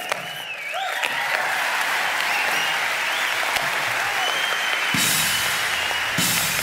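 Theatre audience applauding and cheering, with whoops early on and one long held whistle partway through.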